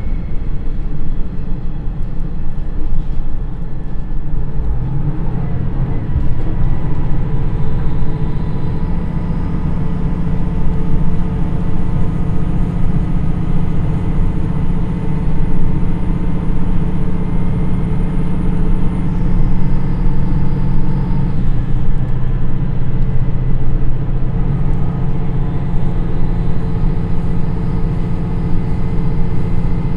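Niigata DMF13HZA turbocharged diesel engine of a JR East KiHa 110 railcar pulling steadily at speed in direct-drive second gear, along with the train's running noise, heard from inside the passenger car.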